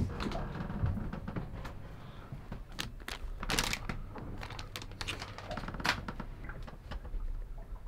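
Scattered clicks, knocks and rustles of things being handled in a small cabin: a lever door handle and door opening, and a plastic sweet packet crinkling, with the loudest rustles about three and a half seconds in and near six seconds.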